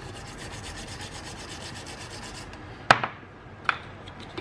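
Small brush scrubbing a chip on a circuit board with washing petrol: a rapid, even, scratchy back-and-forth for about two and a half seconds. It stops, and a sharp knock follows just before three seconds in, with a lighter tap a little after.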